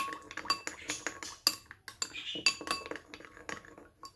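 Metal spoon stirring a dressing in a glass bowl, clinking against the glass several times a second, each clink with a short ringing tone. The clinks stop briefly near the end.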